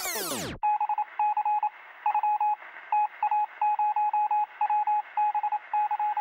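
A sweeping whoosh sound effect dies away about half a second in. It gives way to a run of electronic beeps at one steady pitch, short and long beeps in an irregular on-off pattern like Morse code, with a thin, telephone-like tone.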